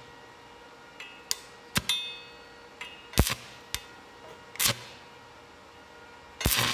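Stick welder trying to strike an arc with a 1/8-inch 7018 rod at about 190 amps: about half a dozen short, sharp crackling bursts at irregular spacing, with the arc catching and dying each time. The rod won't hold a steady arc because the machine is still set too cold.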